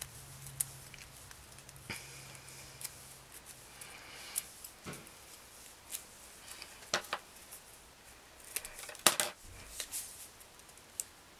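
Light paper rustling and small clicks as a thin paper strip is wound tightly around a pencil and handled, with a sharper knock about nine seconds in.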